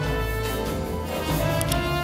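Jazz big band playing live: saxophones, trumpets, trombones and drum kit together, holding sustained chords.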